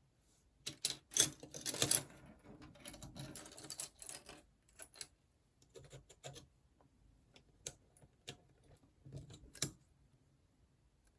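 Small plastic building-block pieces clattering and clicking as they are handled and pressed together. A dense rattle of pieces comes about a second in, followed by scattered single clicks.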